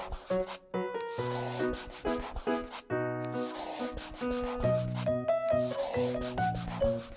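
Scratchy coloring sound, like a crayon rubbing back and forth on paper, in three long stretches, over a light tune of short plucked notes.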